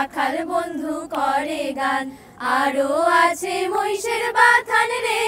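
A group of women singing a Bengali folk song together about the farmers' life, the melody climbing in steps and ending on a long held note.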